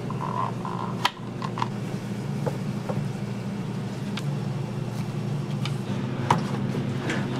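Kitchen handling noises from slicing and moving blocks of Spam and a plastic food container: a few sharp clicks and knocks, the loudest about a second in and another near the end, over a steady low hum.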